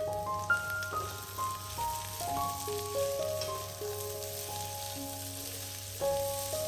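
Chicken, mushrooms and sliced red pepper sizzling as they fry in a hot wok, stirred and tossed with tongs. A slow melody of held notes plays over the sizzle.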